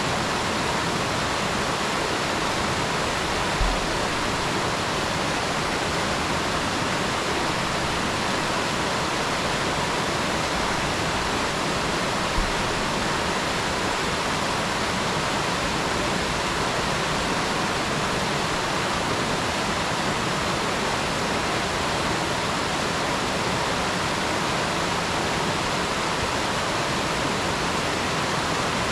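Mountain stream rushing steadily over rocks, an even, unbroken sound of running water. Two brief dull thumps come in, about four and twelve seconds in.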